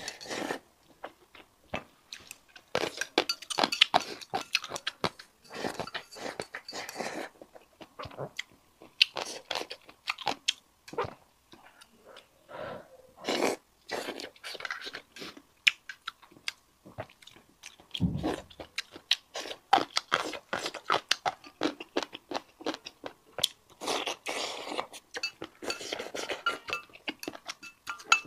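Close-miked chewing and crunching of mouthfuls of food, with dense irregular clicks and short bursts, and one dull low thump about two-thirds of the way through.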